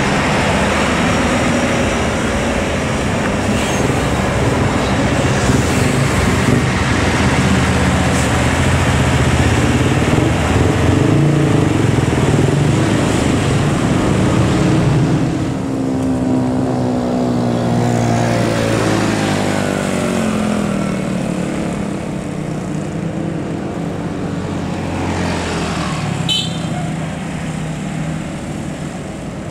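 Large bus's diesel engine and exhaust running loud in road traffic, its note falling as it goes past a little over halfway through.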